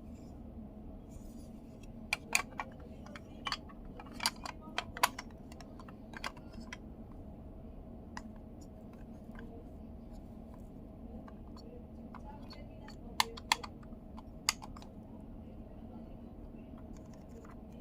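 Sharp plastic clicks and taps from the parts of a Mazda commander control knob being handled and fitted together, in two bursts: a scatter of clicks from about two to six seconds in, and three or four more around thirteen to fourteen seconds. A steady low hum runs underneath.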